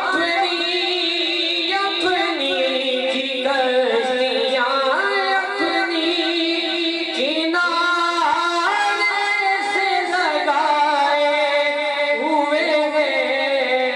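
A man chanting a devotional recitation into a microphone in a melodic, sung style, with long, wavering held notes and ornamented glides between them.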